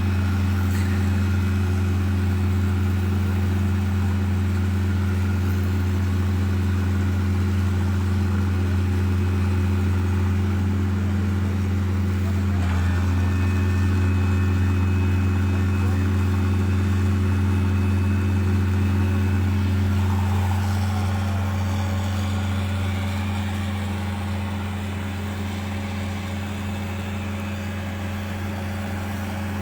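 Steady low engine drone, like a large motor idling, a little quieter in the last third.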